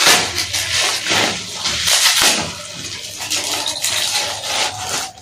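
A taped-up parcel being torn open by hand: packing tape and wrapping ripping and rustling in an irregular run of scrapes and tears.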